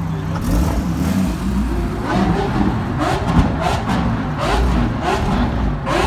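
A car engine running steadily with a low rumble, with people talking over it from about two seconds in.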